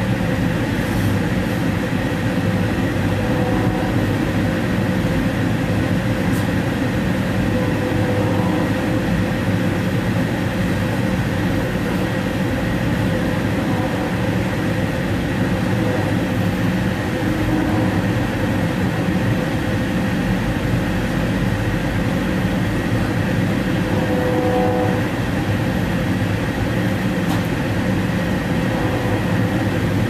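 Steady rumble of an Amtrak passenger train's wheels on the rails, heard from inside the Superdome lounge car as it rolls along, with faint steady tones and a few light clicks.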